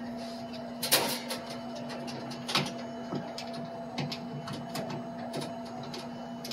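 Scattered metallic clicks and knocks of tools handled against a metal vending machine while a fastener is worked on, over a steady low hum. The loudest knock comes about a second in.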